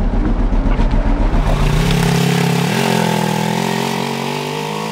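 Side-by-side utility vehicle's engine pulling away, with a low rumble at first, then the engine note rising in two steps about two and three seconds in before holding steady.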